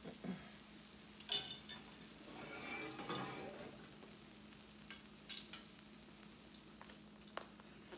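Metal tongs clinking against a stainless-steel pot while lifting battered chicken out of hot frying oil, the oil sizzling. A sharp clink comes about a second in, the sizzle swells around three seconds in, then light ticks and taps follow.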